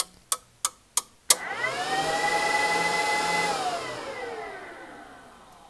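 A few sharp switch clicks, then an electric cooling fan on the amplifier test bench whirring up as the gear is powered on. It holds steady for about a second and a half, then winds down with falling pitch and fades.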